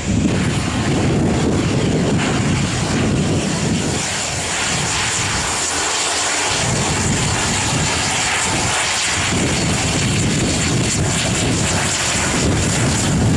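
Boeing 757 jet engines rumbling as the airliner rolls away down the runway. About four seconds in, this gives way to the steadier engine and propeller noise of a Dornier 328 twin turboprop taxiing.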